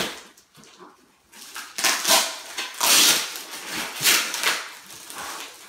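Clear plastic wrapping on a box crinkling and rustling as it is handled and pulled at, in several surges starting about a second in.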